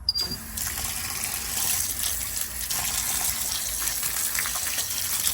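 Tap water running steadily over freshly cut thyme and other herbs as they are rinsed; the flow comes on suddenly at the start.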